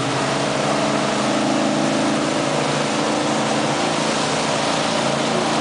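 Motorboat's engine running steadily at speed under the load of towing tubes, with the rush of wake water and wind over the hull.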